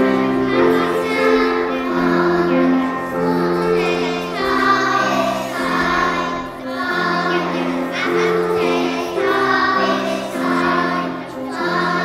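A group of young children singing an action song together over instrumental accompaniment, the accompaniment holding steady chords that change about every second.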